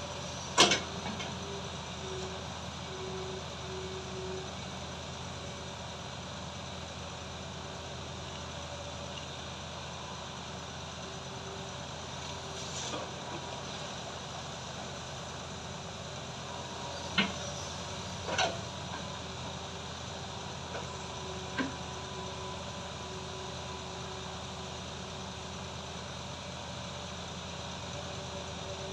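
Hitachi hydraulic excavator's diesel engine running steadily while it digs soil and loads a dump truck. A few sharp knocks stand out: the loudest about a second in, and a cluster around the middle.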